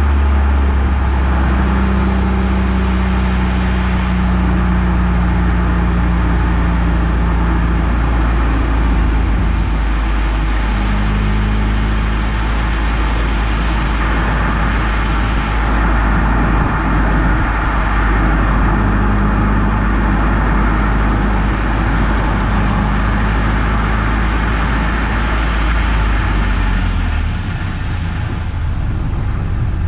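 Eunos Roadster being driven: its inline-four engine runs as a steady low drone over a continuous rush of tyre and road noise, and the engine note shifts a few times.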